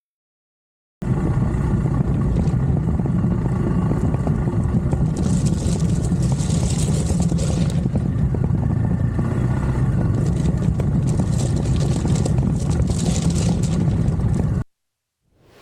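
Adventure motorcycle running steadily on the move. The sound cuts in abruptly about a second in and cuts off abruptly shortly before the end.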